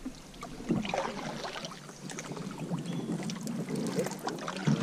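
A kayak being paddled in shallow, weedy water: the paddle dips and splashes, with scattered drips and small knocks.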